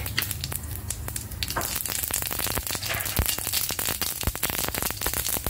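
Mustard seeds and urad dal frying in hot oil for a tempering: a steady sizzle with many sharp, irregular pops and crackles.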